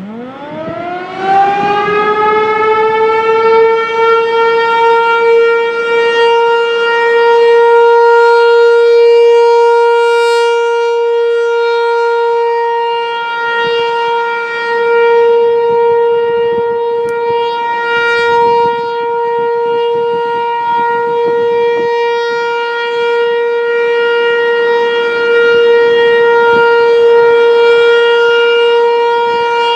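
American Signal Corporation T-135 outdoor warning siren starting up for a tornado drill test. Its pitch rises quickly over the first two or three seconds as it winds up, then it holds one steady, loud wail that swells and fades a little in loudness.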